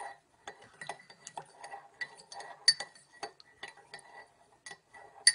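Irregular light clicks and clinks, a few a second, some with a brief ringing tone, from small hard objects being handled.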